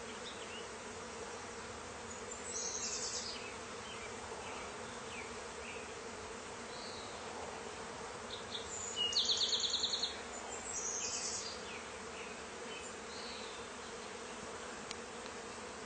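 Steady hum of a large honey bee swarm flying around and settling into a swarm trap box. A few short, fast high-pitched trills stand out over it, the loudest about nine seconds in.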